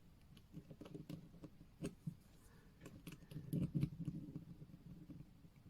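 Light, irregular clicks and taps of small tools and metal watch parts being handled on a workbench, with a few soft knocks near the middle.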